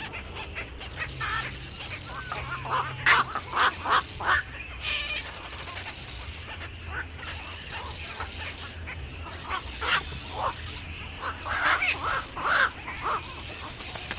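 Several birds calling, a mix of short calls with two clusters of louder ones, about three seconds in and again near the end, over a low steady hum.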